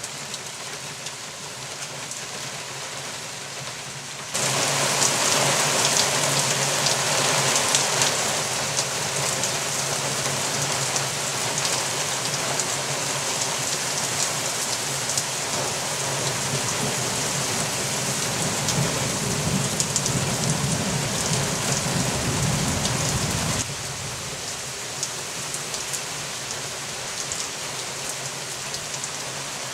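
Heavy rain hissing during a thunderstorm, suddenly louder about four seconds in and dropping back abruptly near the end. A low thunder rumble builds in the second half and stops short with the drop.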